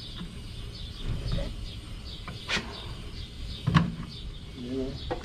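Plastic side cover of an air-conditioner outdoor unit being pressed and snapped back into place: three sharp clicks, the loudest nearly four seconds in.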